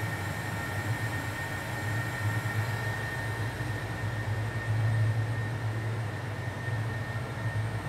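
Droning electronic soundtrack: a low hum that swells and ebbs, under a faint steady high tone and a hiss.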